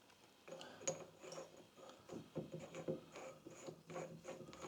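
Faint, irregular clicks and light scraping of metal parts being handled, as the flywheel puller tool is set against the rotor.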